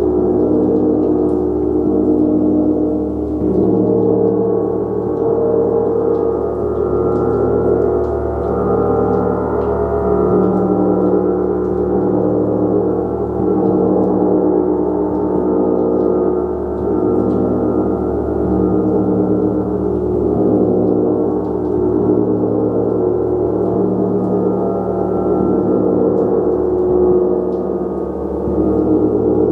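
Gong played continuously, a dense sustained wash of many overlapping ringing tones that swells and ebbs without distinct separate strikes.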